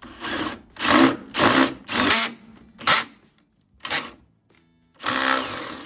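Power drill with a step drill bit boring a drain hole through steel fender sheet metal, run in a series of short trigger bursts with a longer final burst as the bit opens the hole out.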